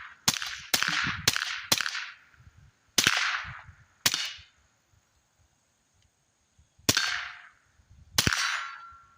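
Eight suppressed shots from a Ruger Mark IV 22/45 Lite .22 LR pistol with a Dead Air Mask suppressor, four fired quickly in the first two seconds, then four more spaced out. The shots have a sharp crack, which the shooter puts down to supersonic CCI Velocitor rounds in the mix, and the last is followed by a brief ring from a steel target.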